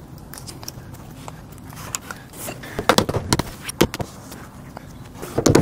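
A few sharp knocks and clicks as a new slide ski is handled and pressed into place under an RV slide-out, bunched about three seconds in and again near the end, over a low steady hum.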